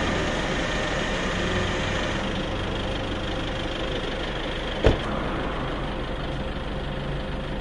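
Vehicle engine sound effect, running steadily at idle, with one sharp knock about five seconds in.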